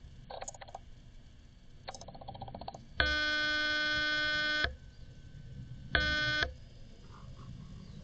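Two electronic buzzer tones at one steady pitch, a long one of under two seconds and then a short half-second one, each switching on and off abruptly. Before them come two brief raspy rattles.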